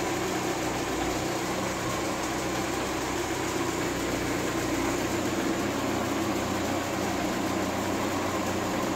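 Car petrol engine idling steadily, kept running for an engine diagnosis.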